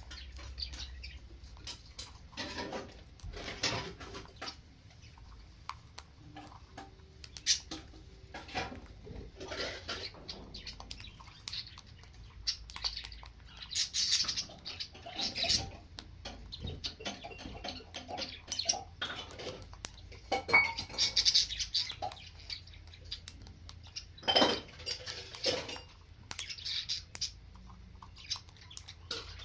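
A parrot chirping and squawking, with many short clicks and clinks between the calls.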